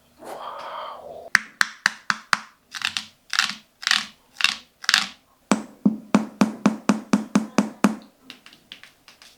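Sparse percussion from music playing on a JBL Essential 2 Bluetooth speaker: scattered sharp clicks and short swishes, then a steady run of ticks about four a second that fades out near the end.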